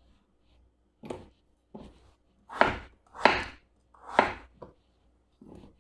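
Kitchen knife chopping raw potato into large cubes on a wooden cutting board: about seven separate chops, irregularly spaced, the first about a second in.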